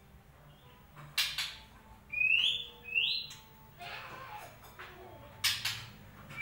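White-rumped shama (murai batu) song: short rising whistled notes, with sharp clicking notes about a second in and again near the end.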